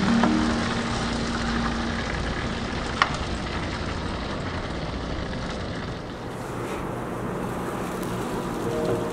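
Gas grill running with a steady rushing noise, with one sharp click about three seconds in, metal tongs against a foil tray.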